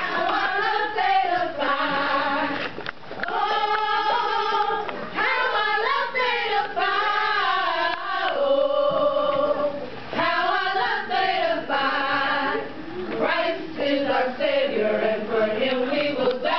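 A group of women singing a song together without instruments, with long held notes that slide up and down in pitch.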